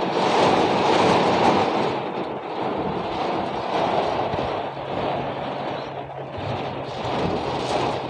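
Heavy rain drumming on the car's roof and windshield, heard from inside the cabin as a loud, even hiss. A low steady hum comes in about halfway through.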